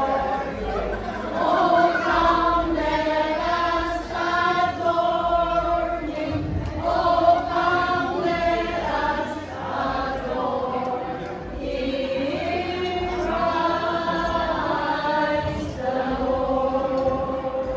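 A group of voices singing a slow song together in long held notes.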